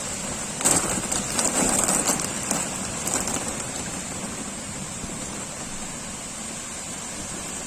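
Heavy rain pouring down in a storm. It comes as a louder, crackling rush for the first couple of seconds, then settles to a steady hiss.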